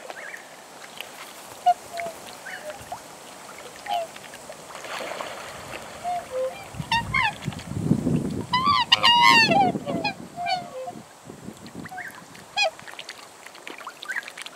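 Black swans calling: scattered short, high bugling notes, and a burst of several overlapping calls about nine seconds in, with a low rumbling noise underneath for a few seconds around it.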